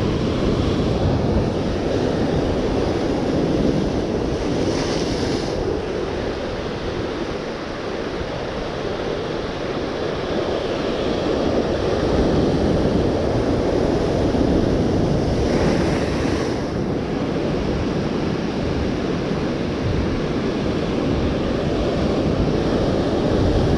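Ocean surf breaking and washing against a rocky shoreline, with wind buffeting the microphone. The wash swells briefly twice, about five and sixteen seconds in.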